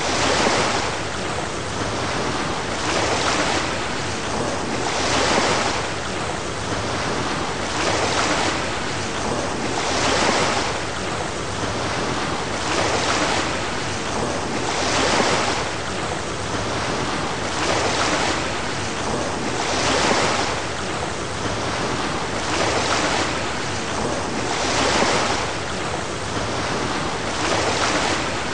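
Ocean surf: a continuous hiss of breaking waves that swells and eases about every two and a half seconds.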